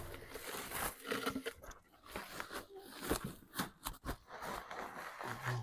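Farm animals eating dry feed: a run of irregular, quiet crunches and chewing sounds.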